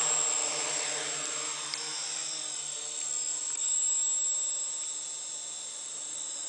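Electric quadcopter lifting off from the grass and flying: a steady high whine from its motors and propellers, loudest at liftoff and easing off a little as it climbs away.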